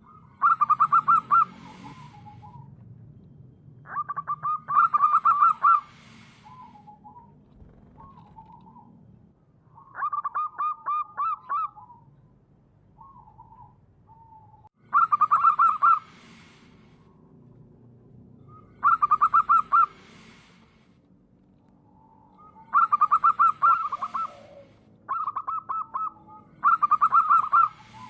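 Zebra dove (perkutut) singing: about eight phrases of quick, staccato cooing notes, each phrase about a second long and a few seconds apart, with softer single coos between them.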